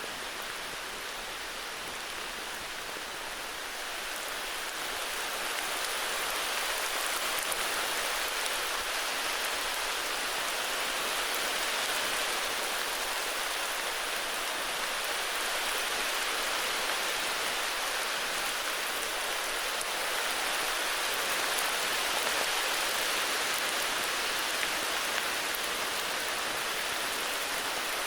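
Heavy rain falling steadily, an even hiss of drops with no thunder, growing a little louder about five seconds in.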